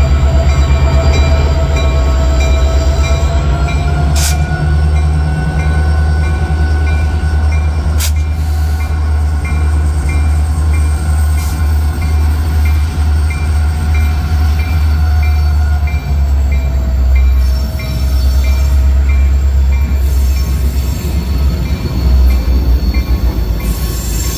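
CN diesel freight locomotives rumbling slowly past, their engines running heavily, with a faint whine rising about four seconds in and falling away later. A bell dings steadily about twice a second, and sharp clanks come about four and eight seconds in.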